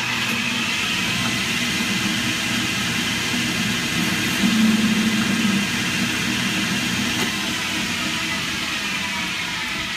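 Metal lathe running steadily, spinning a mild steel rod in its three-jaw chuck while a tool faces the rod's end. The sound swells for a second or so about four and a half seconds in.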